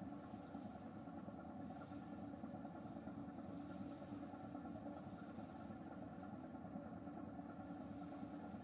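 Car ferry's engines droning steadily while the ship is underway, a constant hum made of several steady tones with no change in pitch.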